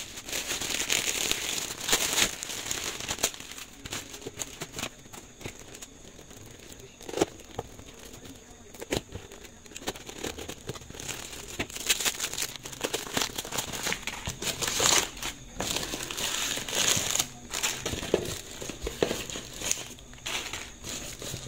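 Plastic bags and paper packing crinkling and rustling in the hands as a parcel is unwrapped, in irregular bursts. A utility knife cuts through the wrapped package about halfway through.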